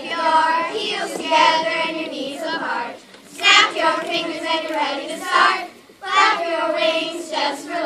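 A group of children singing together, with short breaks between phrases about three and six seconds in.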